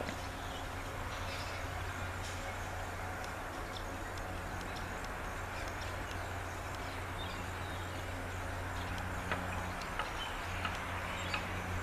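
Steady traffic noise from a highway, with a low hum beneath it and scattered light clicks, a few more of them near the end.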